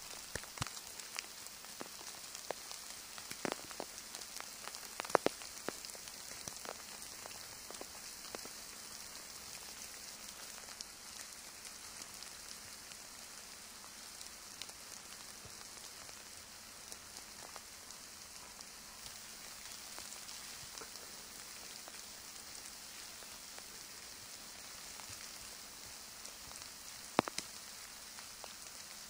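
Melting snow dripping from trees in a faint, steady patter, with scattered louder drops, most of them in the first several seconds and one near the end.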